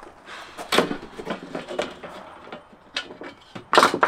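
Metal hand tools knocking and scraping against the camper's window frame as the stapled trim is worked loose, a run of irregular clunks and scrapes with a louder pair near the end.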